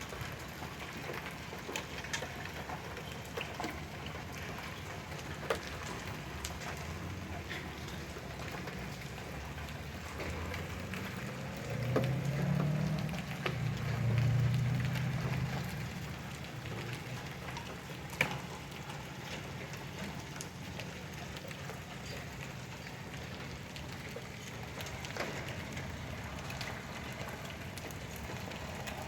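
Steady downpour of rain and hail, with scattered sharp knocks of hailstones striking hard surfaces. A louder low rumble swells midway and fades.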